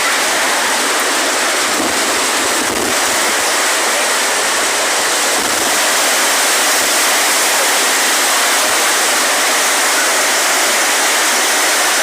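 Storm noise: a steady, loud rush of wind and water with no separate events in it.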